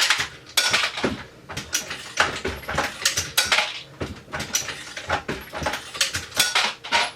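Metal clinking and rattling from the reloading press and its brass cartridge cases, a quick irregular run of sharp clinks.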